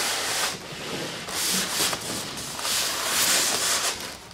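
Cardboard box sleeve being slid off a styrofoam packing box, scraping and rubbing in a few pushes with short pauses between them.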